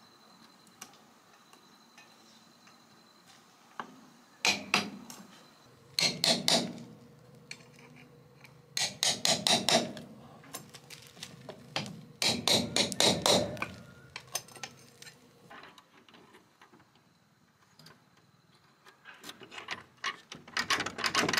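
Bursts of rapid, sharp knocking strikes, several a second, in groups about a second long. Five groups are heard, separated by quiet pauses, and the last one builds up near the end.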